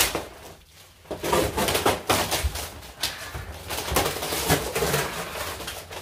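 Rustling and irregular knocks of packaging being pulled off and wooden furniture being handled, dense from about a second in.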